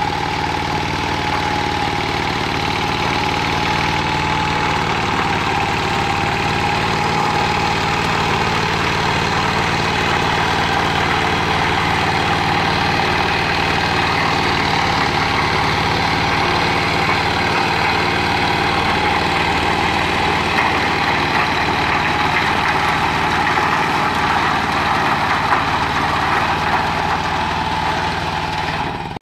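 Zubr 15 hp mini tractor's engine running steadily at constant speed while it pulls a rear-mounted rotary tiller through garden soil.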